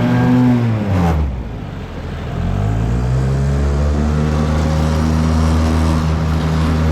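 Nissan 5 hp two-stroke outboard motor running under throttle; about a second in its revs drop sharply, then climb back up and hold steady.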